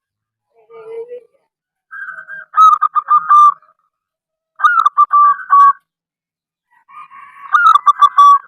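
Zebra dove (perkutut) cooing: a short lower note about a second in, then three phrases of quick, broken coos, each about a second long.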